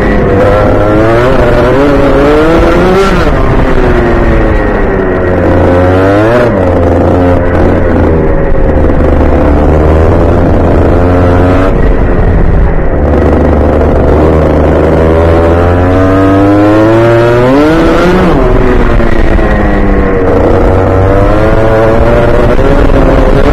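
Rotax Junior Max kart's single-cylinder two-stroke engine at racing speed, heard onboard, its pitch climbing along the straights and dropping off for the corners several times.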